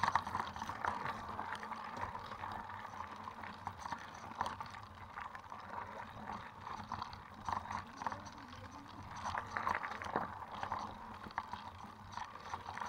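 Mountain bikes rolling over a loose gravel trail: tyres crunching on stones, with irregular rattles and clicks from the bikes.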